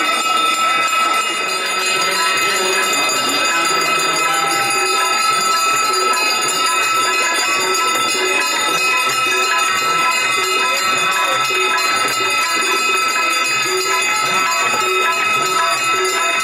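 Many brass aarti hand bells ringing continuously together, a steady shimmering clangour with no break.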